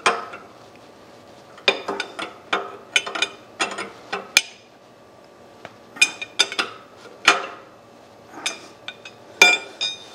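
Steel wrenches clinking on the leveling-foot bolts and nuts of a milling machine base as they are fitted, turned and set down: sharp metallic clinks in irregular clusters, a few ringing briefly.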